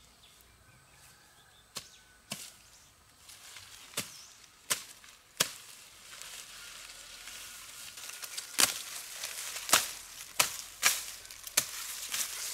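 About ten sharp chopping strikes at irregular spacing, the loudest in the second half, over a rustling hiss that builds from about halfway through.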